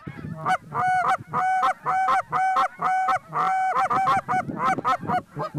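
Canada goose honking: a steady string of repeated honks, about two a second, that turn quicker and shorter near the end.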